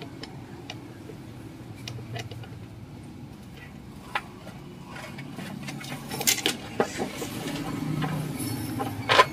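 Light metallic clicks and clinks of the centre mounting nut and bolt of an amplifier's toroidal transformer being unscrewed, turned by hand and then with a wrench; the sharpest clink comes near the end.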